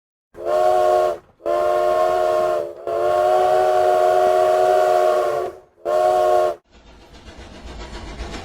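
Steam locomotive chime whistle sounding four blasts of a several-note chord: a short one, a longer one, a long one of nearly three seconds, and a short one. After them the train's running noise starts up and grows louder.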